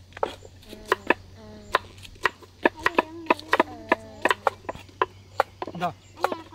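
Knife chopping okra on a wooden board in quick, irregular strokes, about three a second.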